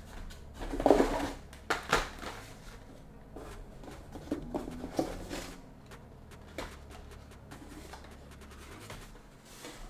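Handling noises from packaged trading-card products, plastic blisters and cardboard collection boxes, being picked up and put down: a handful of knocks and rustles, the loudest about a second in.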